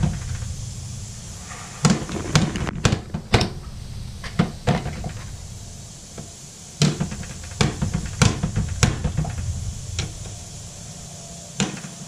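A golf iron's clubhead tapping and knocking against a stainless-steel drip coffee maker, jabbing at its control panel and body. About a dozen sharp, irregular knocks, some in quick pairs, with gaps of a second or more between them.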